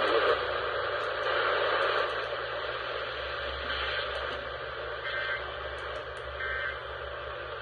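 Steady radio static: an even hiss from a receiver on an open channel with no one speaking.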